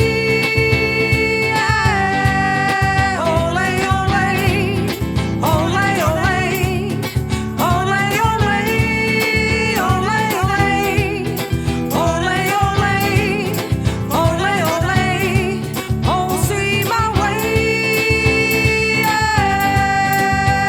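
Brazilian bossa nova trio playing: an instrumental break with a melody of sliding, wavering notes in phrases a few seconds long over guitar and bass accompaniment.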